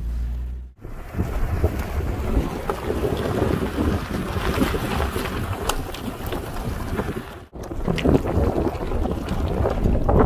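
Wind buffeting a phone microphone held out of a moving car's window, over a low rumble from the car rolling along a rocky dirt road. The sound cuts out suddenly twice, about a second in and again near 7.5 seconds.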